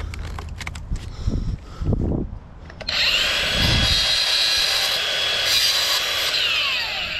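A few knocks of metal pieces being handled, then an angle grinder starts about three seconds in, runs loud and steady with a high whine, and winds down with a falling pitch near the end.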